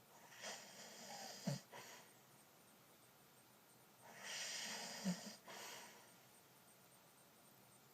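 A man snoring in his sleep: two snores about four seconds apart, each a noisy breath lasting under two seconds with a brief, louder low pulse partway through.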